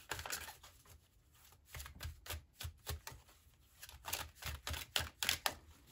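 A tarot deck being shuffled by hand: a quick run of soft card slaps and riffles, with a short pause about a second in.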